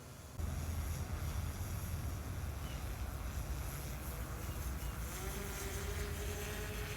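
DJI Matrice 4T drone in flight, its propellers giving a steady buzzing drone. It starts abruptly about half a second in, and a faint steady tone joins it about five seconds in.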